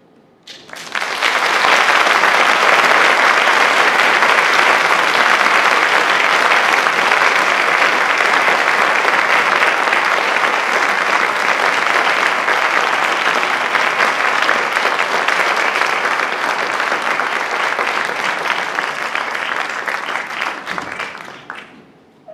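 Audience applauding at the end of a piece: the clapping breaks out about half a second in, swells within a second, holds steady and fades away near the end.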